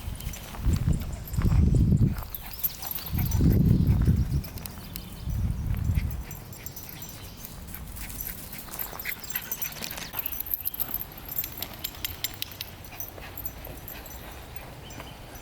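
A dog close to the microphone: three loud, dull, low bursts in the first six seconds, then light clicking and rustling.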